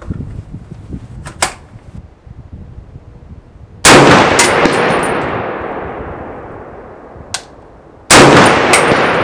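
Two rifle shots from an FN SCAR 17S in 7.62×51mm NATO fitted with its factory muzzle brake, about four seconds apart. Each report is followed by a long echo that fades over a few seconds. A couple of light clicks come between the shots.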